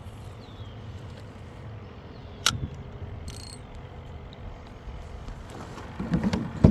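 Fishing reel being cranked to retrieve a lure, a steady mechanical ratcheting whir. A sharp click comes about two and a half seconds in, and a louder cluster of knocks near the end.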